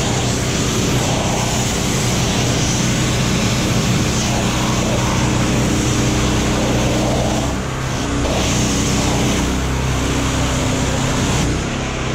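Pressure washer jet spraying the painted metal body panels and wheel of a truck: a steady, loud hiss of high-pressure water over a steady low hum. About eight seconds in the spray briefly drops and the hum shifts in pitch.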